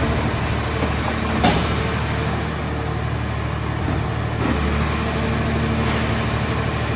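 Engine-driven hydraulic power unit of a mobile car-shell scrap baler running steadily with a low hum, with a sharp knock about one and a half seconds in and a lighter one later.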